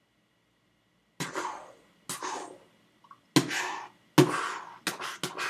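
A person coughing in a fit: about six harsh coughs at uneven spacing, starting about a second in, with the last few coming close together.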